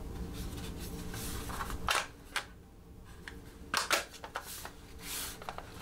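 A hard plastic screwdriver case being handled and turned over in the hands, giving a few light clicks and rubs, with a faint steady low hum underneath.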